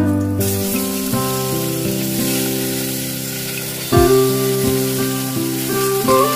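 Hot oil sizzling in a steel wok as chopped gourd pieces are tipped in from a steel bowl. The sizzling hiss starts about half a second in and is heard under background music made of sustained instrument notes.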